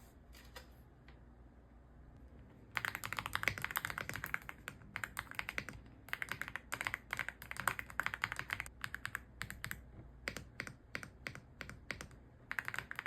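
Typing on an Aula F75 mechanical keyboard. After a quiet start with a few faint clicks, fast runs of key clicks begin about three seconds in and come in bursts separated by short pauses.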